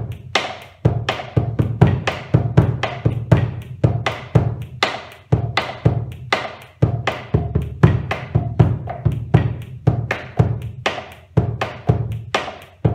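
Bombo legüero played with two wooden sticks in the gato/chacarera rhythm, in triple time: deep strokes on the fur-covered head mixed with sharp clicks on the wooden rim, about three to four strokes a second. It is the 'básico más cruzado' pattern, where one stick crosses over on the third beat.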